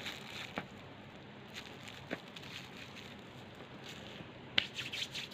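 Quiet eating sounds: a few faint clicks and rustles of food being handled and chewed, with a small cluster of clicks near the end.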